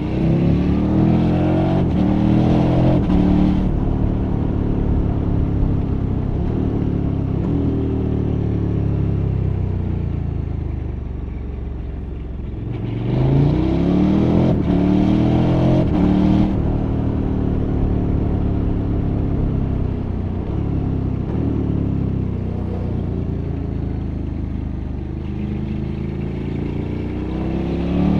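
KTM 1290 Super Adventure R's 1301 cc V-twin engine under hard acceleration, its revs climbing and dropping in quick steps as it shifts up through the gears. The revs then fall away slowly as the throttle is closed. This happens in three bursts: at the start, about halfway through, and near the end.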